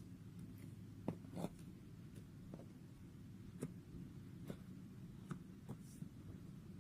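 Slime being worked by hand, giving faint scattered clicks and pops about every half second to second, over a low steady hum.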